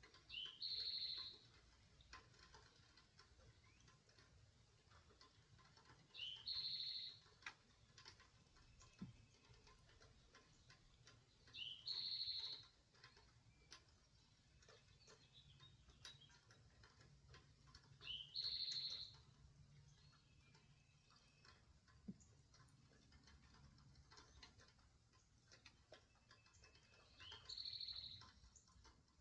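A bird calling five times, about every six seconds: each call is a quick rising note followed by a higher, brief held note.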